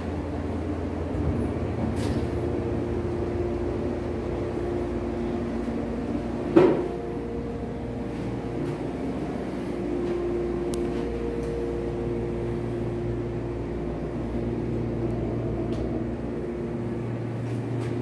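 Montgomery KONE elevator car travelling: a steady mechanical hum with a low whine, and a single loud clunk about six and a half seconds in.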